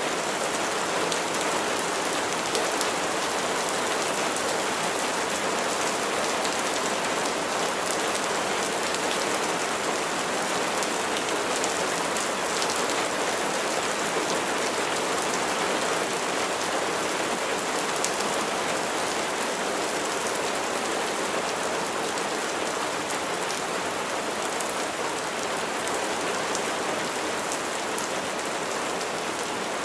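Steady rain falling and pattering on surfaces, a dense even hiss of many drops with faint individual drop ticks.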